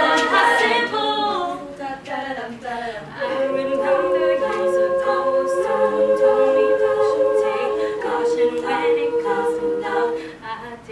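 Women's a cappella group singing in harmony, with a chord held for several seconds in the middle; the singing dies away near the end.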